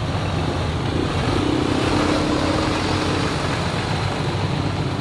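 Lifted pickup truck's diesel engine running as the truck drives slowly past, a steady low rumble with the engine note rising slightly about a second and a half in.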